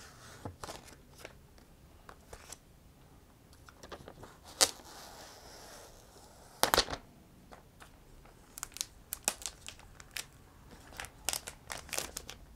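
Clear protective plastic wrap being peeled off a new iPad 8: quiet, scattered crinkling and crackling of the film, with two sharper crackles about four and a half and seven seconds in and a quick run of crackles near the end.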